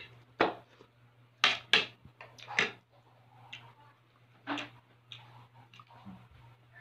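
Cutlery clicking, knocking and scraping against plastic food containers and a bowl during a meal, with several sharp knocks in the first three seconds and another past the middle, over a steady low hum.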